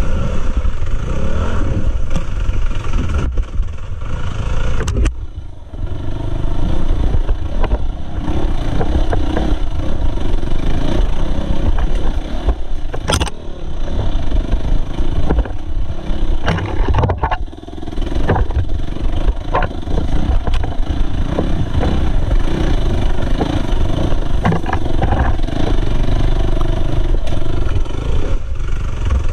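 Dirt bike engine running and revving up and down on a rough trail, the throttle dropping off briefly twice, about five and seventeen seconds in. A few sharp knocks break through the engine sound.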